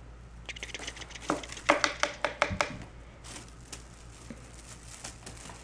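Quick clicking, rustling and clattering as a Bengal cat scrambles at a wicker basket of plastic toys after a wand toy. The sounds are busiest in the first three seconds, with a short high tone mixed in about two seconds in, then a few scattered ticks.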